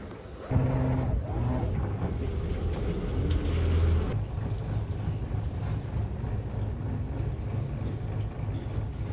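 Sailing yacht's inboard engine running at low revs while coming into a marina berth, a steady low hum. It jumps up in level about half a second in and swells briefly around three to four seconds in.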